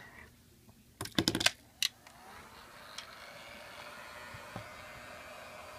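A few sharp clicks of handling, then a hot-air blower switches on and runs with a steady rushing hiss, its tone rising slightly as it spins up. It is the tool used to heat the iPad's edges and soften the adhesive so the broken glass can be lifted.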